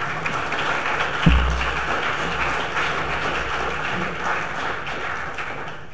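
Audience applause in a large hall, fading toward the end. A single low thump comes about a second in.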